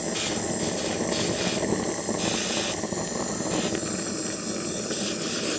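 Gas torch flame burning with a steady rushing hiss, heating the joints so the soft solder flows and sets.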